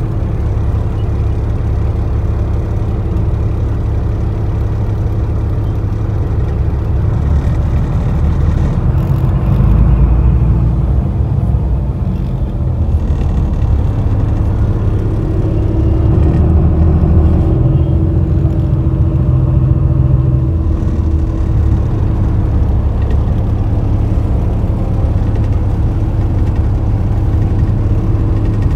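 Engine hum and road rumble of a moving road vehicle, heard from inside the cabin. It is steady and low, and grows louder briefly about a third of the way in and again for a few seconds past the middle.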